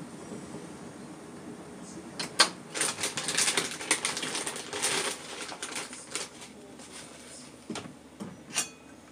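Kitchen clatter: a sharp click, then about two seconds of rapid light clicks and rattles, then a few separate metallic clicks near the end as the lid of a stainless-steel kettle is handled.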